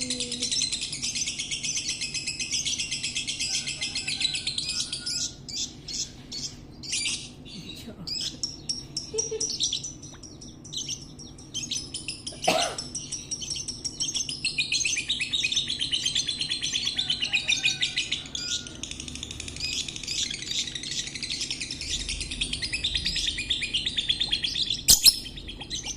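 Lovebird singing: a rapid, continuous high chatter in two long runs, with scattered single chirps between them. A sharp click near the end.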